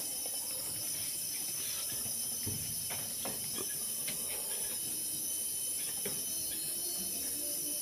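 Steady high-pitched hiss of a night insect chorus, with a few faint clicks scattered through.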